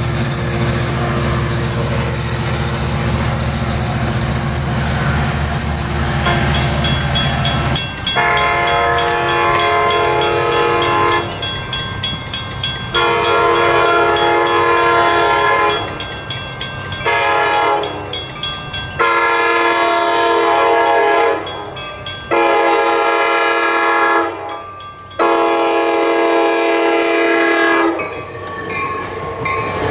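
For about eight seconds, an Amtrak California F59PHI diesel locomotive runs as it approaches and passes. Then an ACE commuter train, led by its cab car, sounds its horn in a series of six blasts of two to three seconds each at a grade crossing, with the crossing bell ringing throughout.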